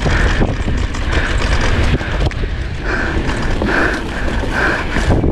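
Polygon Xquareone DH9 downhill mountain bike rattling and knocking over a rough dirt trail at speed, under a steady low rumble of wind on the microphone. A hiss comes and goes several times in the second half.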